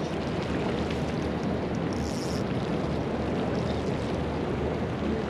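Steady wind rumble on the microphone with water lapping around a small boat, and a brief high hiss about two seconds in.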